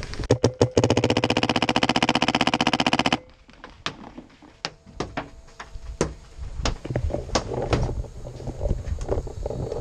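Paintball marker firing: a few single shots, then a fast, even burst of about two seconds that cuts off suddenly. Scattered single sharp cracks follow.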